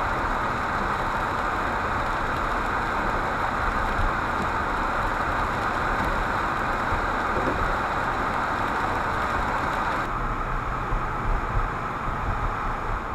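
Steady road and tyre noise with engine rumble inside a moving car, picked up by a windshield-mounted dash camera. The hiss thins a little about ten seconds in, and the sound starts to drop away at the very end.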